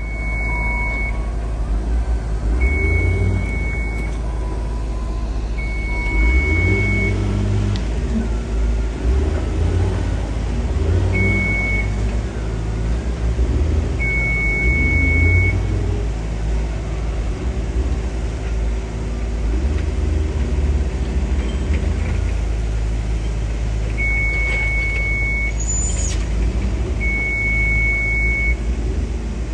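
A heavy machinery engine runs with a steady low rumble, its note rising and falling. A warning beeper sounds about seven long single-pitch beeps at uneven spacing.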